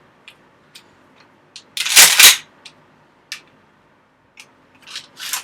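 A 12-gauge shell being pushed into a Mossberg Maverick 88 shotgun's tube magazine: light clicks and rattles of handling, with a loud double clack about two seconds in as the shell goes in, then a few more clicks near the end.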